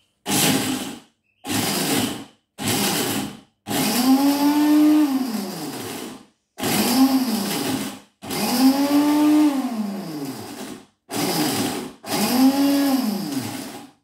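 Electric blender with a small chopping jar pulsed about eight times, chopping peas to a paste. Each burst of motor whirring starts and stops abruptly, and in the longer bursts the pitch rises and then sinks.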